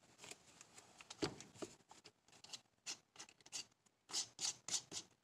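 Faint, irregular clicks and short scraping rasps of a screwdriver bit being handled and fitted into a drill's chuck, with a quick run of rasps about four seconds in.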